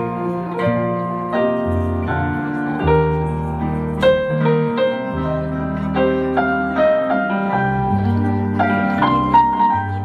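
Korg Kross keyboard played with a piano sound: an instrumental passage of chords and a melody line over long-held low notes.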